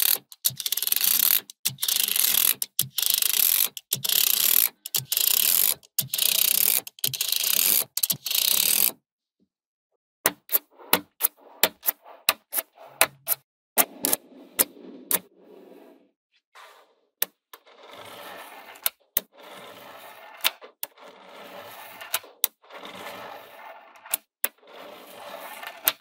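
Magnetic balls clacking together: several seconds of loud, dense rattling in repeated bursts, a short pause, then a run of sharp single snapping clicks as balls are set onto one another, and softer, quieter clicking near the end.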